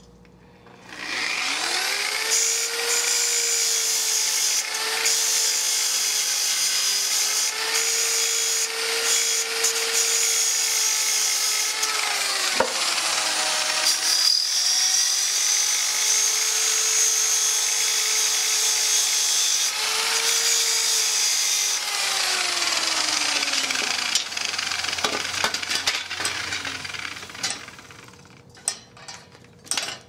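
Electric angle grinder spinning up about a second in and grinding torch-cut slag off the ends of steel bed-frame angle iron, a steady whine whose pitch dips briefly around the middle. It winds down with a falling whine a few seconds before the end, followed by a few light clicks and knocks.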